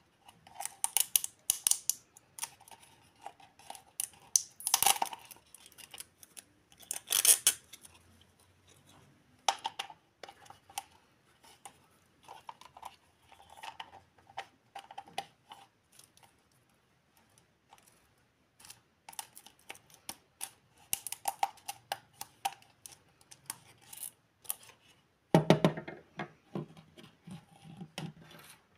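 Small yellow plastic toy tea-set pieces (teapot, spoons, forks) being handled and set down on a table: irregular light clicks, taps and scrapes with a few louder knocks. There is a short lull midway and a cluster of louder knocks near the end.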